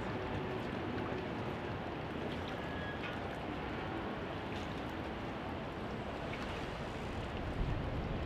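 Steady riverside city ambience: a continuous low rushing hum with no distinct events, swelling slightly near the end.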